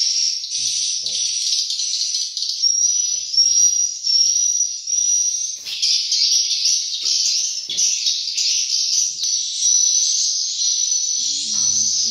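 Swiftlet calls from a swiftlet house's lure sound played through tweeter speakers: a dense, high-pitched chirping of short repeated chirps, about two a second, that never lets up. A low steady hum comes in near the end.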